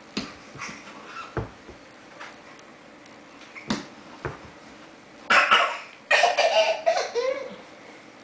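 A baby dragging herself across a hardwood floor: a few short, soft slaps and knocks of her hands and body on the boards, then loud, breathy vocal sounds with a few brief pitched cries from about five to seven seconds in.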